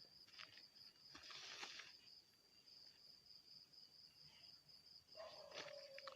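Faint insect trill, a steady pulsing high-pitched chirping like crickets. There is a brief rustle about a second and a half in, and a steady lower hum comes in near the end.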